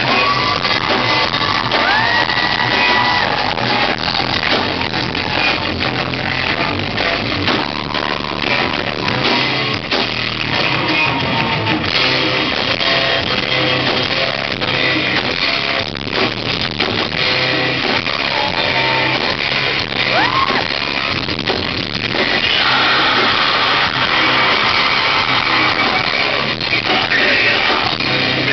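Loud rock music with guitar. It grows fuller and brighter about three-quarters of the way through.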